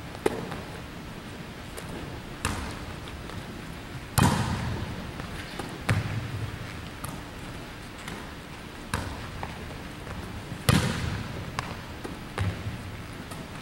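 Volleyball being hit and bouncing on a hardwood gym floor: about eight sharp slaps spaced a second or more apart, the loudest about four and eleven seconds in, each echoing around the large gym.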